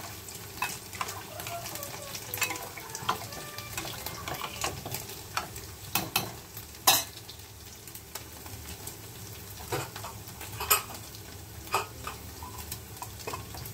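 Steel ladle stirring rice and water in a stainless-steel pressure cooker, scraping and clinking against the pot, with sharp knocks here and there, the loudest about seven seconds in. Under it, a steady sizzle of paneer cubes frying in oil in a kadhai.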